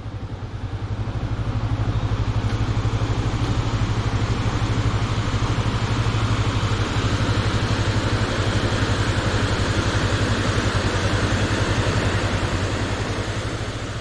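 Motorcycle engine running at low speed with a steady, rapid pulse, over a broad rushing hiss; it fades in at the start and fades out near the end.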